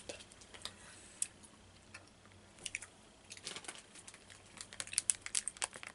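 Faint chewing of a sour gummy worm: soft wet mouth clicks and squishes, sparse at first and more frequent in the second half.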